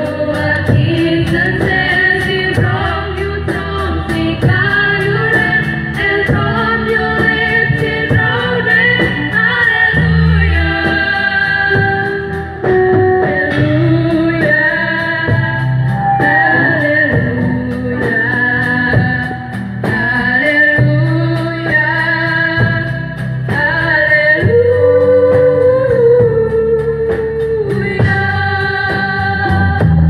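Three girls singing a song together into microphones over a live band of keyboard, acoustic and electric guitars and bass guitar, amplified through PA speakers.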